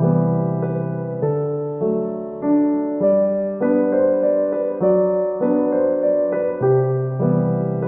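Gentle background piano music, a slow melody of held notes over sustained low chords.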